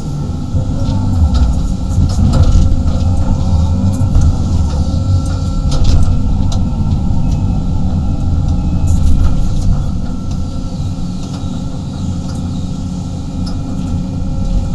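A 35-ton excavator's diesel engine running under working load, heard from inside the cab as a heavy steady rumble with a thin steady whine above it. Scattered clicks and knocks come from the bucket and dirt as it dumps and scrapes soil.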